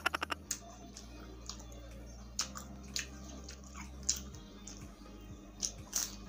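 Close-up mouth sounds of a person chewing food: scattered soft, wet smacks and clicks, then a bite into a fried pork lumpia near the end.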